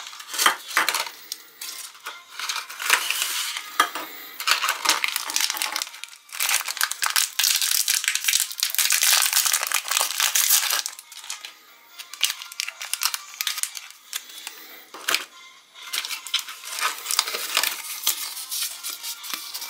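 Foil wrapper crinkling as a small foil-wrapped cookie is unwrapped by hand, most continuous and loudest in the middle, with scattered clicks and rustles of a plastic capsule and paper packets before and after.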